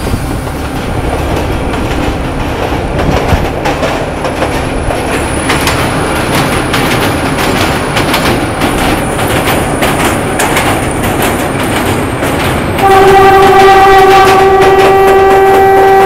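Narrow-gauge diesel train running at speed, its wheels clattering over the rails and across a steel truss bridge. Near the end the locomotive's horn blows one loud, steady blast for about three seconds.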